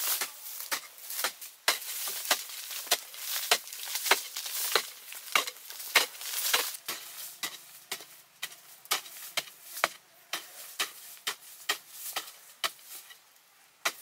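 A long-handled digging tool striking and scraping dry, sandy soil, a sharp strike about every half second with loose earth hissing and scattering between strikes. The strikes thin out and go quiet near the end.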